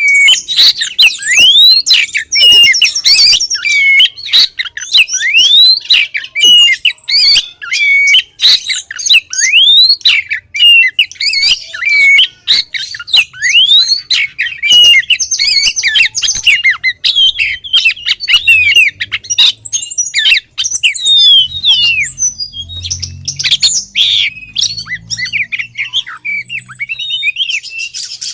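Female oriental magpie-robin calling without pause: a fast, varied run of chirps, rising whistled sweeps and harsher notes. It is the call of a female calling for a male.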